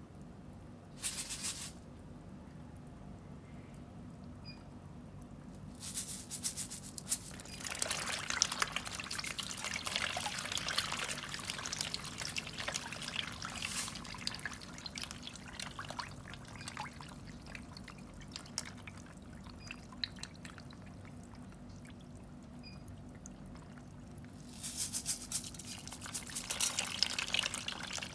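Lele catfish splashing and thrashing at the water surface during a feeding frenzy. There is a short splash about a second in, then two spells of busy, crackling splashing with a quieter stretch between them.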